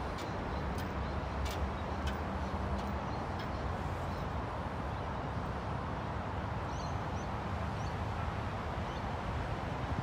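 Steady low drone of a machine running, even throughout, with a few faint bird chirps about seven seconds in.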